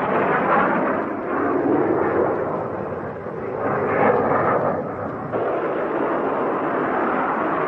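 A continuous rushing roar of jet-propelled flight that swells and dips, changing abruptly about five seconds in.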